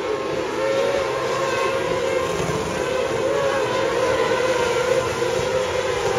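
A pack of winged micro sprint cars running laps on a dirt oval. Several engine notes overlap in a steady drone whose pitch wavers gently up and down, with no hard revving.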